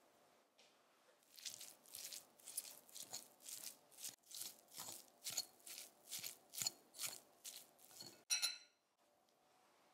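A metal fork mashing firm tofu in a glass bowl, a quick run of short strokes at about three a second. Near the end a single sharp clink of the fork against the glass rings briefly.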